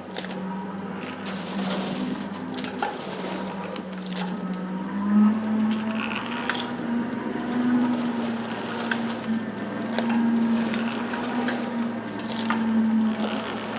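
Hand-cranked forge blower turning gently, giving a steady low hum that swells and fades with the cranking and steps up a little in pitch about five seconds in. Scattered crackles and snaps come from the sawdust-and-coal fire as it takes.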